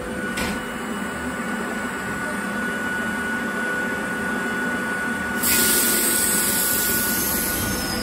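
A Hakone Tozan Railway Moha 2 electric railcar standing at the platform, its onboard equipment giving a steady whine. About five and a half seconds in, a loud hiss of air starts and keeps going.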